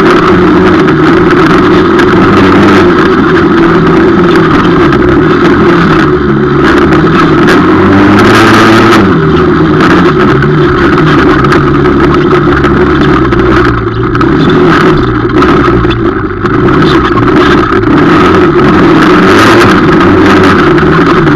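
250 quad ATV engine heard close up from an onboard camera while being ridden, loud and continuous, its pitch rising and falling over and over as the throttle is opened and eased. It briefly drops off twice about two-thirds of the way through.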